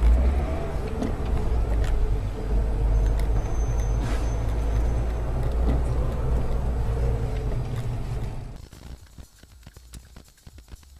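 Car driving with a steady low rumble of engine and road noise. About eight and a half seconds in, the sound cuts abruptly to much quieter, with a rapid crackle of small clicks.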